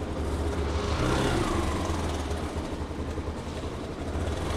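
Motorcycle engine running as the bike pulls away slowly, its pitch rising about a second in, easing down, then rising again near the end.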